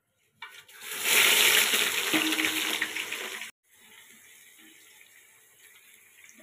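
Sliced onions and whole spices dropped into hot oil and ghee in a steel pot, sizzling loudly as they hit the oil: the tempering (baghaar) step. The loud sizzle starts about half a second in, breaks off sharply about three and a half seconds in, and is followed by a much quieter steady sizzle.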